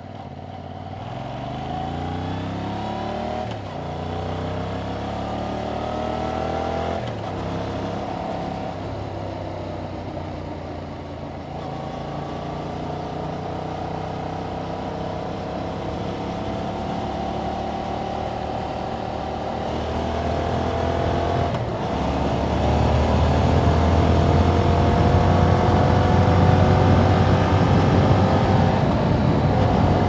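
2021 Yamaha MT-07's parallel-twin engine through its stock exhaust, pulling up through the gears. The note rises, drops at an upshift about three and a half seconds in and again at about seven seconds, then holds a steady cruise. After another shift a little past twenty seconds, the bike runs louder on a steadier note.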